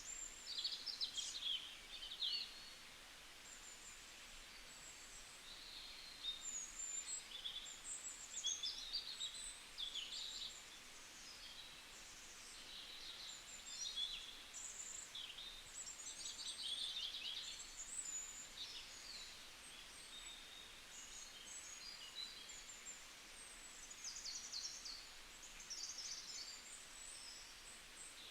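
Forest ambience of songbirds chirping and trilling, many short calls overlapping, over a faint steady hiss.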